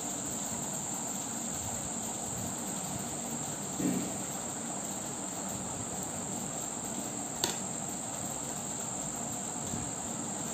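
Metal knitting needles being worked through yarn, giving one sharp needle click about seven and a half seconds in, over a steady high-pitched background whine.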